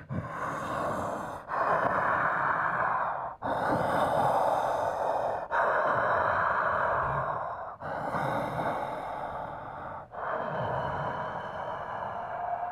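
A man's slow, heavy, rasping breathing, one long breath about every two seconds with a brief break between breaths.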